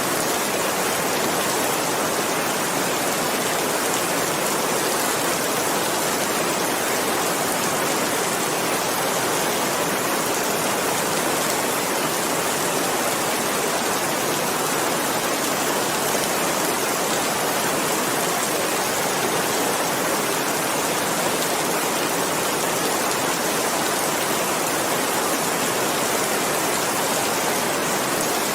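Steady, even rain falling without a break, a dense unvarying hiss of drops.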